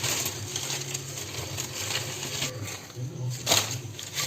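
Leaves rustling and crackling as they are pulled out of a clay pot packed with mangoes, with a louder rustle about three and a half seconds in.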